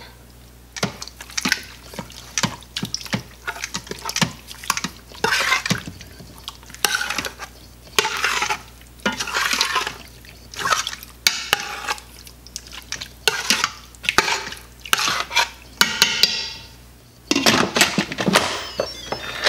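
Metal spoon stirring pork chunks and broth in a stainless steel Instant Pot inner pot, scraping and clinking against the pot again and again. Near the end the pressure cooker's lid is set on and turned.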